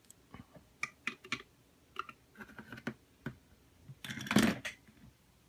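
Small plastic toys being handled: a run of light clicks and taps, then a louder rustle about four seconds in.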